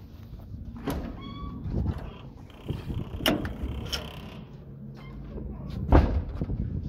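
Handling noise of a phone carried while walking: rubbing, scuffs and several sharp knocks, the loudest about six seconds in, with a short high squeak about a second in.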